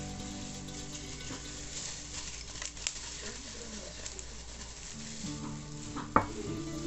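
Dry granulated tapioca poured from a mug into a plastic tub: a light, even patter of grains. A sharp click comes about six seconds in, over faint background music.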